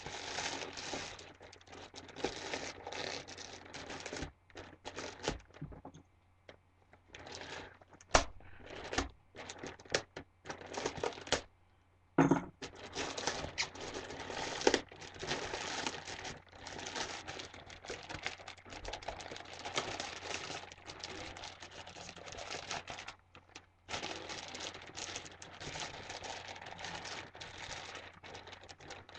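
Sturdy mail packaging being torn open by hand, crinkling and ripping in irregular bursts with a few short pauses.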